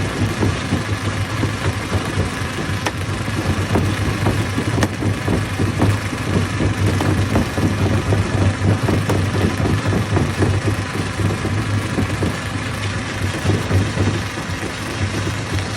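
Hammer stone crusher running steadily: a constant low machine drone with a dense, continuous rattle over it.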